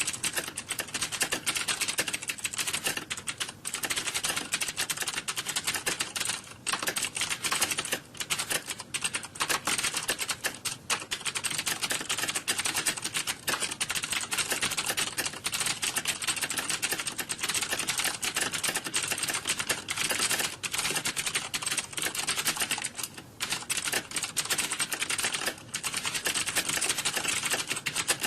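Computer keyboard typing: a fast, continuous clatter of key clicks with only a few brief pauses, like keyboards typing in an exam hall.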